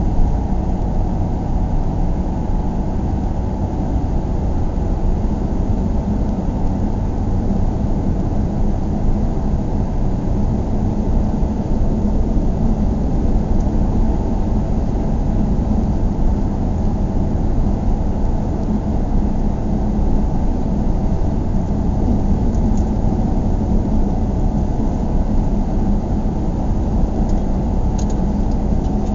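Steady low road rumble heard inside a moving car's cabin: tyre and engine noise at a constant cruising speed, with a few faint ticks near the end.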